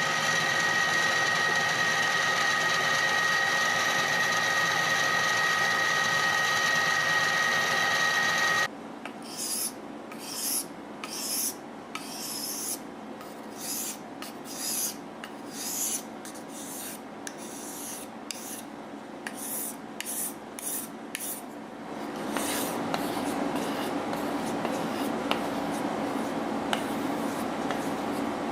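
A power tool running steadily with a high whine, cutting off suddenly about 9 seconds in. Then a hand file rasping in repeated strokes, about one and a half a second, shaping a G-10 knife scale. From about 22 seconds a steady machine hum comes in.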